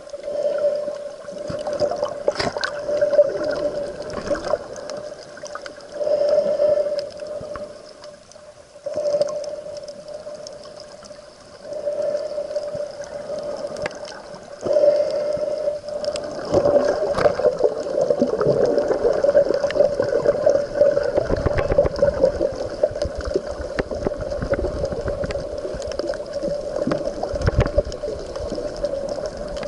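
Muffled underwater sound of water sloshing and gurgling around the camera, with a steady hum that fades in and out and a few knocks. The wash and low rumble grow stronger about halfway through.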